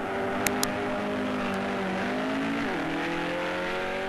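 Modified Volkswagen Beetle drag car accelerating hard from the line, its engine pitch climbing, dropping at a gear change about two and a half seconds in, then climbing again. Two sharp clicks about half a second in.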